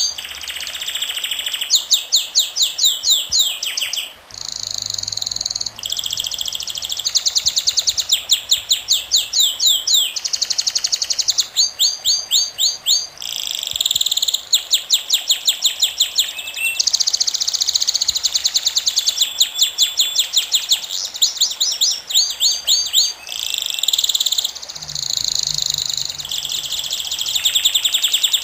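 Songbird singing continuously in long, fast trills of repeated high, down-slurred notes. It switches to a new repeated note every second or two.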